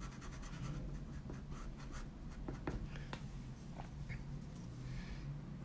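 A colored pencil scratching across paper in short, faint strokes, with a few light ticks.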